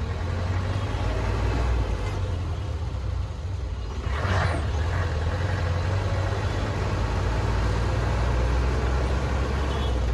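Road traffic: motor vehicles running with a steady low rumble, and a short burst of noise about four seconds in.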